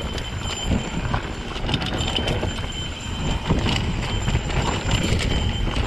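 Mountain bike rattling over a rocky trail, with irregular knocks of tyres and frame on rock and wind rumbling on the microphone.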